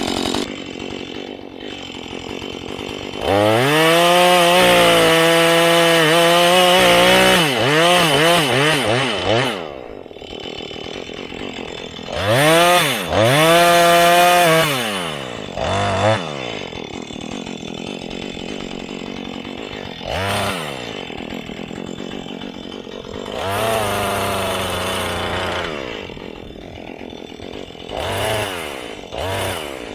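Husqvarna 435 two-stroke chainsaw idling and revved to full throttle in bursts, the longest about six seconds starting a few seconds in, then a shorter one and several brief blips. Under throttle its pitch sags and wavers as the chain cuts into wood.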